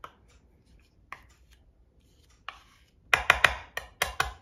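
Butter knife scraping through fudge and knocking against a metal baking pan. A few faint scrapes are followed by a quick run of about eight sharp knocks in the last second and a half.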